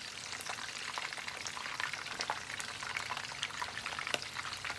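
Chunks of sea fish, heads included, sizzling in hot oil in a wok, with a steady hiss and many small crackles and spits.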